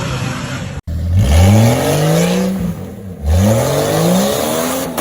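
Off-road vehicle engine revved hard twice, its pitch climbing steeply each time before dropping back.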